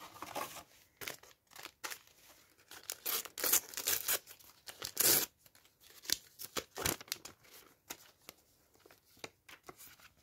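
A sticker packet being torn open, its wrapper ripping and crinkling in a string of rustles that are loudest in the middle. After that comes quieter rustling and clicking as the stickers are handled.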